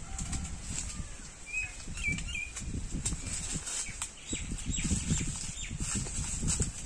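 Leaves and branches of a jackfruit tree rustling and shaking, with irregular low thumps, as ripe jackfruits are pulled off and handed down. A few short bird chirps come about two seconds in.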